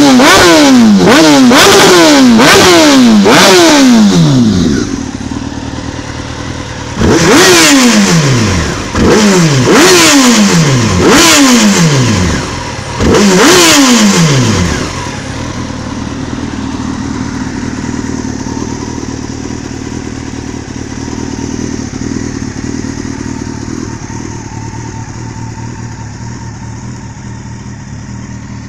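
Honda CBR929RR Fireblade's 929 cc inline-four revved in neutral through a polished aftermarket slip-on silencer: a quick run of about five sharp throttle blips, each falling back in pitch, then after a short idle several longer, higher revs, before it settles to a steady idle for the last dozen seconds.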